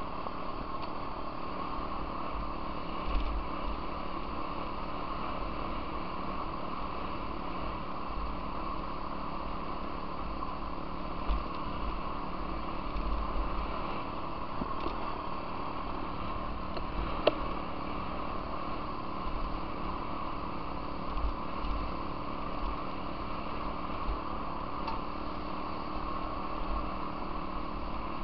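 Off-road vehicle engine running at a steady speed while riding a gravel trail, with wind buffeting the microphone and a few sharp ticks and knocks from the ride.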